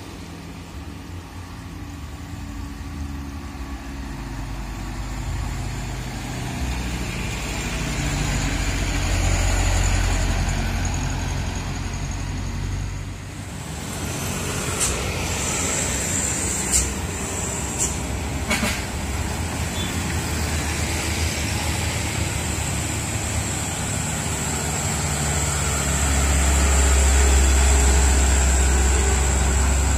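Road traffic passing on a hill road: trucks, a van and motorcycles, with engine and tyre noise swelling as each vehicle nears. A few sharp clicks come in the middle. A light box truck's engine is loudest as it passes close near the end.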